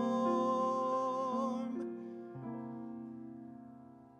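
A man sings a held note with vibrato on the word "warm" over piano accompaniment. The voice stops a little under two seconds in, and the piano chords ring on, fading away.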